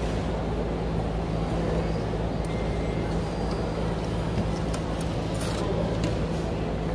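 Steady low hum and rumble of airport terminal background noise, with faint voices. A few light clicks and a brief mechanical rasp come about five and a half seconds in, as the check-in kiosk prints a boarding pass.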